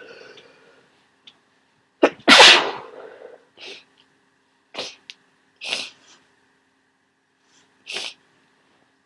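A person with a head cold and congestion lets out one loud, wet sneeze about two seconds in. It is followed by several short, quieter bursts over the next six seconds.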